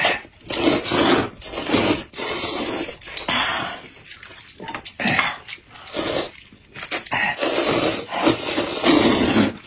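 Two people slurping hot and sour glass noodles (suan la fen), a run of short wet slurps one after another, each under a second, with brief gaps between.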